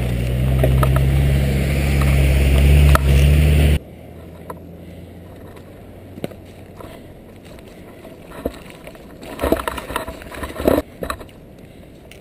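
Loud, low wind rumble on the microphone of a camera on a bicycle riding down a mountain road, cutting off suddenly about four seconds in. After that comes quieter riding noise, with a few knocks and rattles from the bike on the rough, rock-strewn road near the end.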